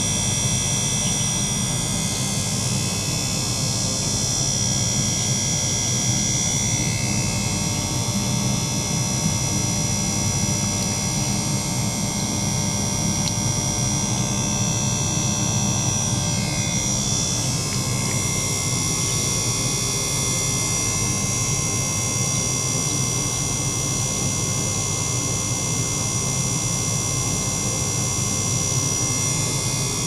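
Small electric pump circulating water through an ultrasonic test tank, giving a steady low hum with a constant high-pitched whine held over it.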